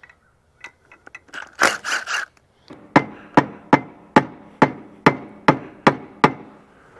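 A hammer tapping the valve cover of a Mitsubishi tractor's two-cylinder diesel engine, about nine sharp blows roughly two a second, to break the cover loose from its gasket. A few lighter knocks and scrapes come first.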